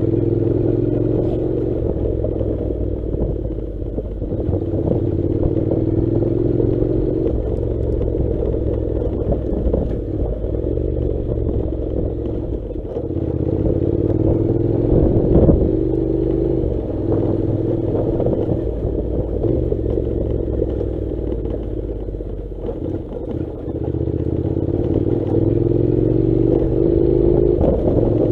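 Honda NC700's parallel-twin engine running under way, its pitch rising slowly three times as it pulls. Clatter runs throughout, with a sharp knock about halfway through.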